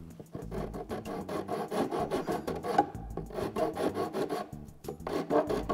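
Hand wood file scraping in quick back-and-forth strokes along an old painted wooden table rail, with a couple of brief pauses. It is rasping off old glue and grime from the joint surfaces so fresh white glue will grip.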